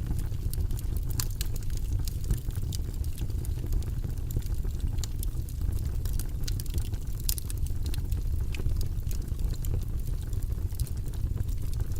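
Fire in a fireplace crackling: irregular sharp snaps and pops over a steady low rumble of the flames.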